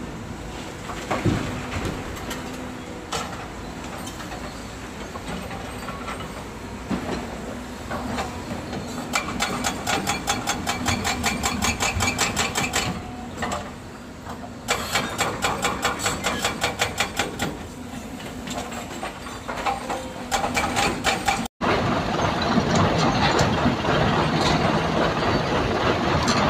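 Heavy earthmoving machinery working: diesel engines running under load with long spells of rapid, regular clanking, typical of crawler tracks on a bulldozer or excavator on the move.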